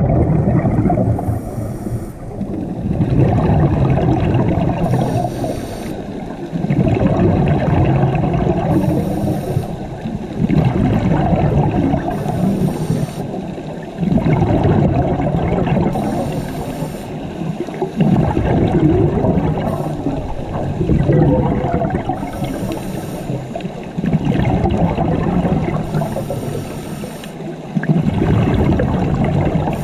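Underwater scuba diver breathing through a regulator: a short hiss on each inhale, then a longer rumble of bubbles on the exhale, repeating about every four seconds.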